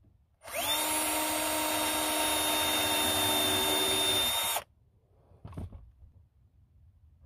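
Bosch drill spinning up and running steadily for about four seconds as it drills into the wooden trim for a screw-in hook, then stopping suddenly. A short knock follows about a second later.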